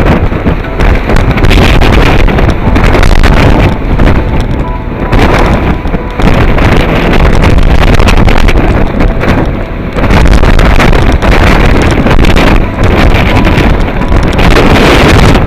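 Gale-force wind buffeting the microphone: a loud, continuous rushing noise that dips briefly every second or two as the gusts vary.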